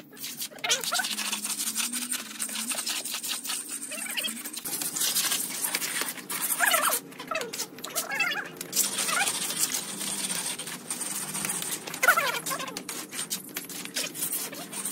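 Steel brick trowel scraping and tapping wet mortar against a metal mortar pan and bricks: a run of quick clicks and scrapes, with a few short squeaky scrapes that slide up and down in pitch, the loudest about twelve seconds in.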